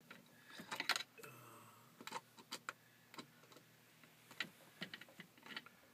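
Irregular light clicks and taps of hands working at plastic hose fittings and a filter housing, over a faint steady hum.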